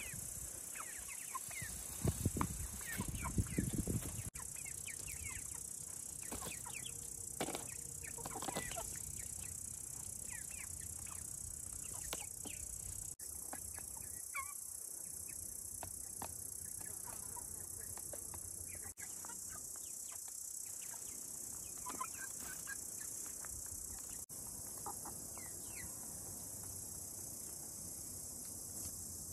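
Chickens clucking now and then, over a steady high hiss, with a few dull knocks about two to four seconds in.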